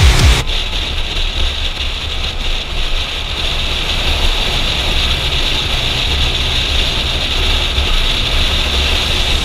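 Kawasaki motorcycle engine running at steady cruising speed on the highway, heavily mixed with wind rumble on the helmet-mounted camera's microphone.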